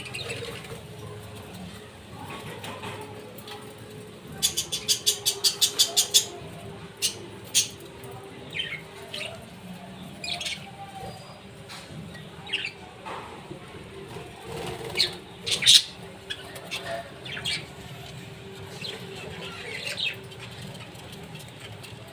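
Budgerigars chirping in short, scattered calls. About four seconds in comes a burst of rapid wing flapping, about six beats a second, lasting roughly two seconds. A faint steady hum runs underneath.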